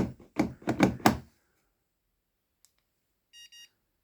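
A faint click, then a second later two short, high electronic beeps in quick succession: a car alarm system's beeper answering an unlock command sent from the aftermarket alarm's key fob.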